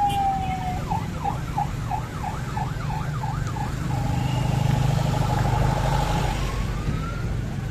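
Vehicle's electronic siren cycling through its patterns over a low engine rumble. A falling wail turns into a fast yelp of about three warbles a second, then a held steady tone, then a rising wail near the end.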